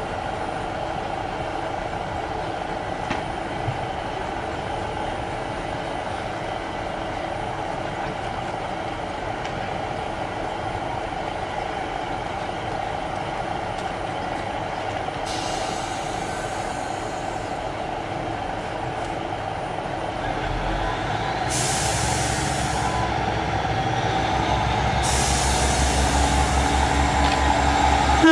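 Class 150 Sprinter diesel multiple unit idling at the platform, a steady engine hum with a whine over it. Air hisses out three times, the first about halfway through and two more near the end, typical of the air brakes. The engine note grows louder and deeper in the last few seconds.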